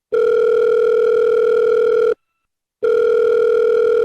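Two long, steady electronic tones, each lasting about two seconds with a short break between them, in a telephone-like pattern.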